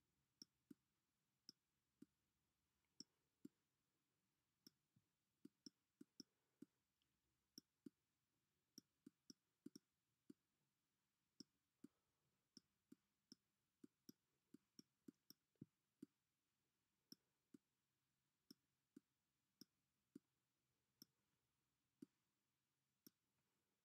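Faint, irregular clicks of a stylus tip tapping a drawing tablet as handwritten letters are put down, one to a few a second, against near silence.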